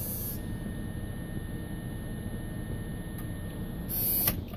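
Steady low rumble in a pickup's cab with two faint clicks, one about three seconds in and one near the end, while the glow plugs of a 1989 Chevy 3500's 6.2 diesel cycle before a cold start; the engine is not yet running.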